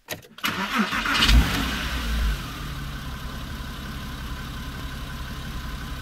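Porsche Cayman S's 3.4-litre M97 flat-six starting, heard from inside the cabin. A brief crank, then the engine catches about a second in with a short rev flare and settles into a steady idle.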